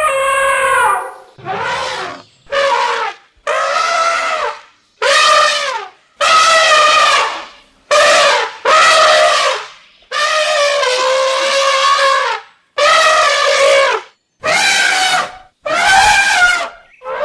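Elephant trumpeting: about a dozen loud, brassy trumpet calls in quick succession, each rising and then falling in pitch, separated by short gaps.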